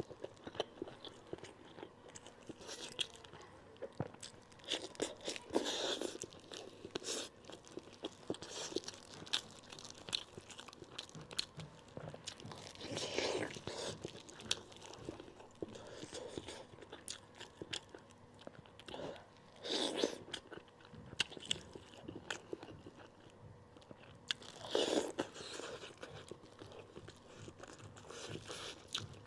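Close-miked eating of braised monkfish: wet chewing, lip smacks and soft crunches as flesh is bitten and picked from the bones, with a few louder spells spaced several seconds apart.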